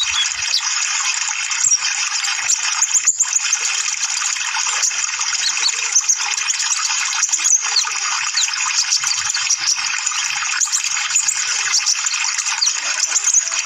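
Sunbird (kolibri ninja) twittering: a dense stream of rapid, high-pitched short chirps over a steady hiss, played as a lure recording to get caged sunbirds singing.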